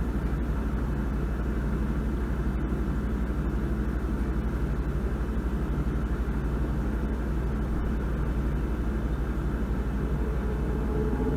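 A steady low rumbling hum with a fast, even throb in its lowest part.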